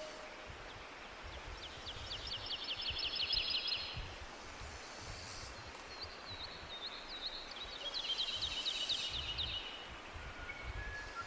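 Tropical forest birds calling over the steady rush of a jungle waterfall: a rapid trill of fast repeated high notes about two seconds in, a gliding whistle, then a longer trill around eight seconds in.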